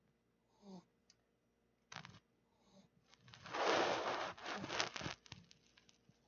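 Pekingese dog snoring lightly in its sleep, one soft snore about a second in. From about three and a half to five seconds in comes a louder rustling and crackling, the loudest sound here.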